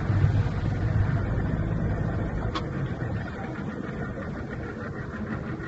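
Motorboat engine running steadily, getting gradually quieter.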